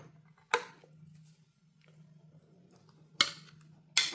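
Three sharp knocks as a glass measuring jug and a spoon strike the rim of the salad bowl while thick mayonnaise dressing is poured out, over a faint steady low hum.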